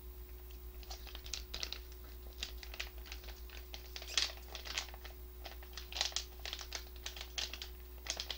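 Snack being eaten from a plastic wrapper close to the microphone: quick, irregular crinkling and crunching clicks that start about a second in. A steady electrical hum lies underneath.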